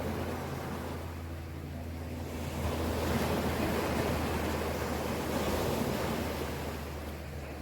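Ocean surf washing ashore, swelling about two and a half seconds in and easing off near the end, over a steady low hum.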